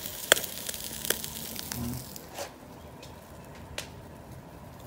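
Pork pieces sizzling over a charcoal fire on a kettle grill, with a few sharp crackles and pops. The hiss drops about halfway through.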